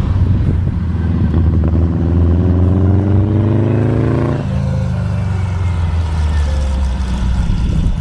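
VW-powered trike's air-cooled flat-four engine accelerating, its pitch climbing steadily for a few seconds. About four and a half seconds in the revs drop off sharply, and it runs on steadily at a lower pitch.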